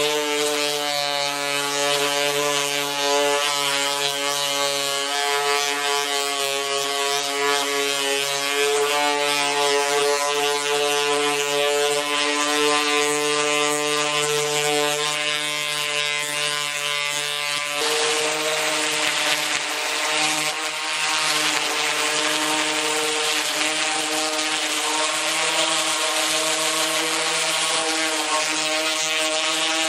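Electric random orbital sander running steadily with a motor whine, its pad scrubbing paint off a car's sheet-metal body panel down to bare metal. About 18 s in, the scrubbing hiss grows louder.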